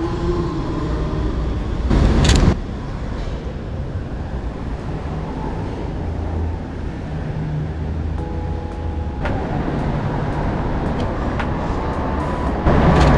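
Street ambience with road traffic running steadily. There is a short, louder rush about two seconds in and another near the end.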